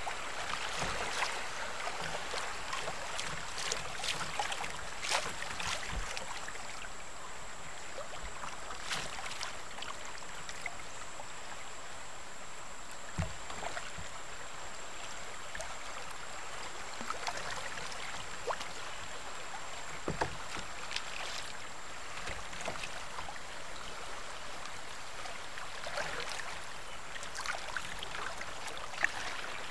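Shallow river water rushing over a riffle and around a sit-on-top kayak's plastic hull, with occasional short splashes and knocks. A faint steady high whine runs underneath.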